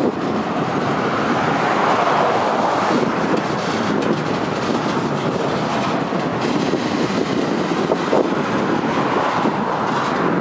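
Freight train of covered hopper cars rolling past: steady loud noise of steel wheels on rail, with a few faint clicks.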